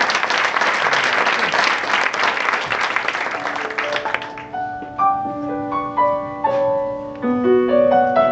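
Audience applauding, dying away about three and a half seconds in as a piano starts the song's introduction with slow, held chords and single notes.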